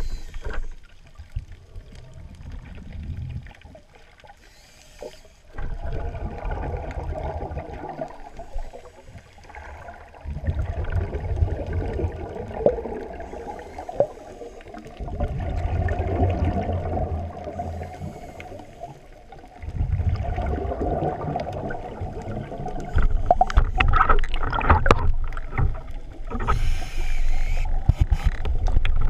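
Muffled underwater water noise heard through a camera housing as a spearfisher swims with fins. Low rumbling swells come and go every few seconds, with scattered clicks and knocks near the end.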